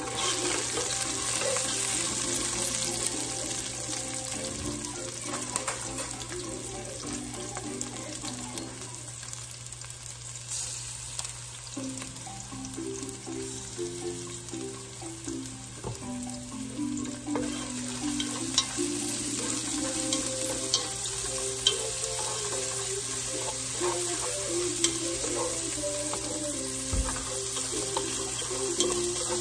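Diced onion frying in oil in a pot, a steady sizzle, with a wooden spoon stirring through it and now and then clicking against the pot. Background music with a melody plays over it.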